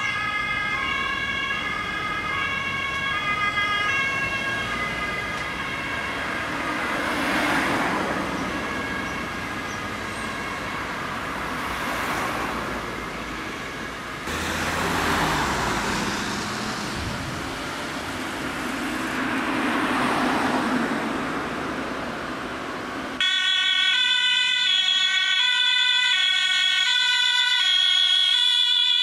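German ambulance two-tone siren alternating between two notes, fading as the ambulance drives off. Tyre and road noise of passing cars swells and fades several times. About 23 seconds in, a louder alternating two-tone siren comes in from an approaching ambulance running on blue lights.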